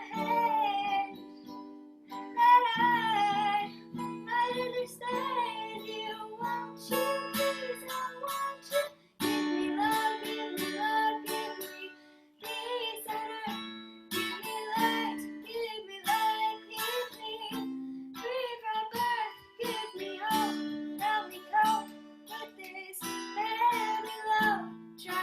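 Acoustic guitar strumming and picking chords under a girl's sung melody, with brief pauses between phrases.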